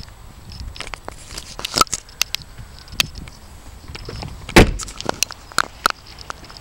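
Scattered clicks and knocks of handling and movement around a car, with one loud thump about four and a half seconds in.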